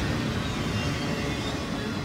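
Double-stack intermodal freight train's container well cars rolling past on the track, a steady rumble that slowly fades as the train moves off.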